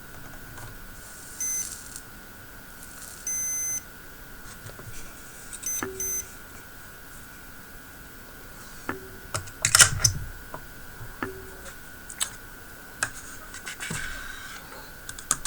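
Electronic beeps from soldering bench equipment: a short beep, a longer one about two seconds later, then two quick beeps. These are followed by a few sharp clicks and taps of small tools, with a steady high whine underneath.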